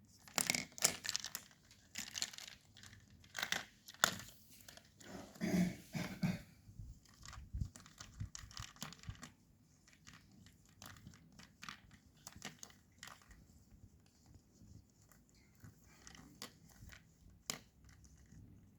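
Rustling and crinkling of something crinkly being batted and pounced on by a playing kitten, in dense irregular bursts for the first six seconds or so, then fainter scattered scratches and clicks.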